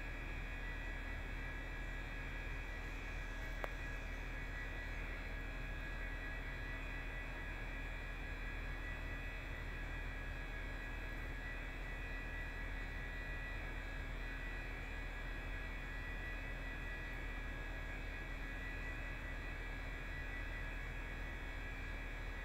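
A steady hum with a faint high whine, unchanging, and a single click about three and a half seconds in.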